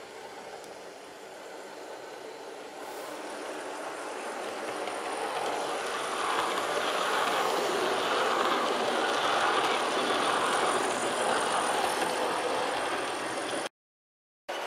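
Rapido OO gauge model APT-E train running on model railway track: a steady whirring, rushing noise of motor and wheels that grows louder as it approaches and passes close by, then cuts off abruptly near the end.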